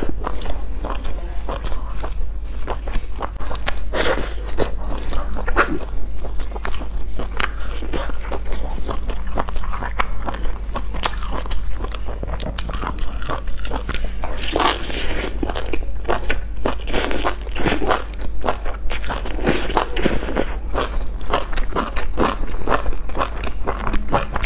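Close-miked eating: biting into and chewing a crisp pan-fried flatbread sandwich stuffed with sausages, with continual crunching and chewing.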